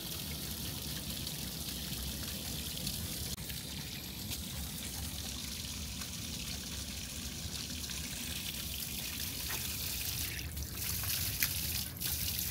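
Small stream of water trickling and splashing down a hillside, a steady even hiss, with a few short knocks near the end.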